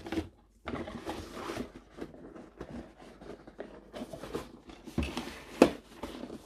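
Kit box being opened and its packaging and contents handled: irregular rustling and scraping, with two sharp knocks about five seconds in, the second the loudest.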